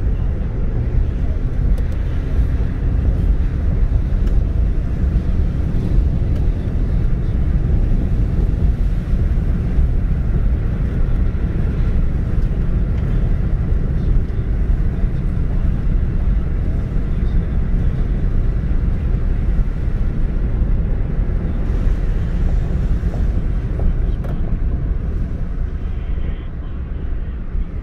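Steady road and engine noise inside a moving car's cabin: a continuous deep rumble of tyres on pavement.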